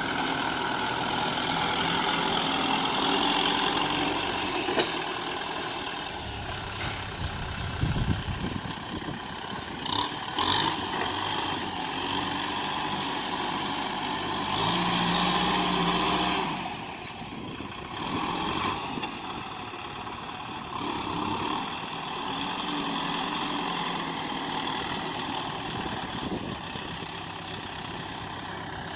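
Kubota M6040SU tractor's four-cylinder diesel engine running while the tractor shoves loose soil with its blade, the engine note rising and falling and loudest for a couple of seconds about fifteen seconds in, with a few short knocks along the way.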